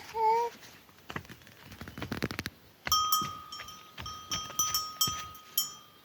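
A metal dish clinking repeatedly, with a high ringing tone that sets in about halfway through and is struck again by each clink.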